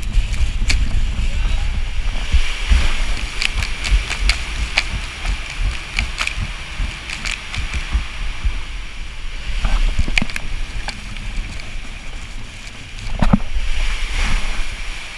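A raft sliding down an enclosed water-slide tube: rushing, sloshing water and a steady low rumble, with many short knocks as the raft bumps along the tube.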